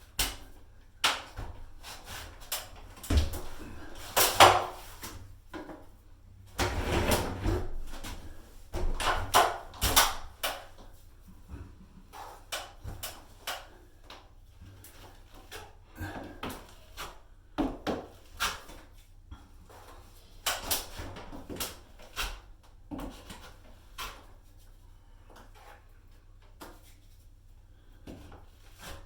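Old drywall joint compound being stirred by hand in a bucket: irregular scrapes and knocks of the tool against the bucket as lumpy mud is worked smooth.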